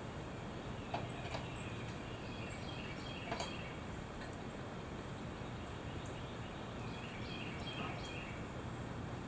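A few light clicks and knocks from a screw post jack being set and tightened under a barn beam, against steady background noise with faint bird chirps.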